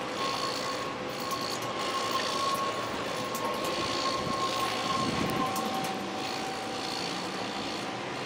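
Heavy diesel construction machinery running steadily, with a steady whine over the engine noise.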